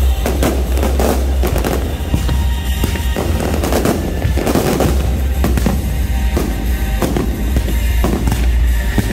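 Aerial fireworks shells bursting and crackling in quick, irregular succession over music with a heavy, steady bass.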